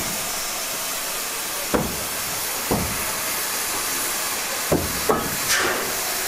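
Steady loud hiss of steam from a standing steam locomotive, an S15 class 4-6-0 (No. 506), with about five short dull knocks spread through it.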